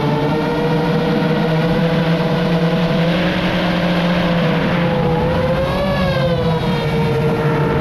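FPV racing drone's brushless motors whining steadily over a rushing hiss; the pitch swells up and back down about five to six seconds in as the throttle changes.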